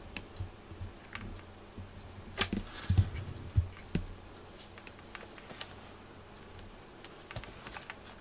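Scattered soft clicks and dull thumps of cats moving about and pawing at a fleece cushion, the loudest cluster about two and a half to four seconds in.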